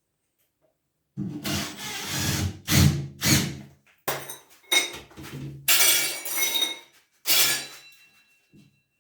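A series of about seven loud clattering, clinking knocks of hard objects with a brief ring after some of them, starting about a second in.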